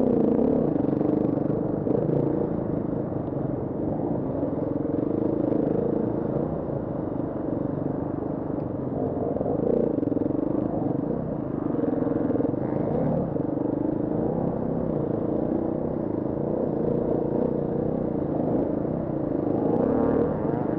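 KTM 350 EXC-F Six Days enduro motorcycle's four-stroke single-cylinder engine running under load, its pitch rising and falling with the throttle, with a few brief knocks from the bike over rough ground.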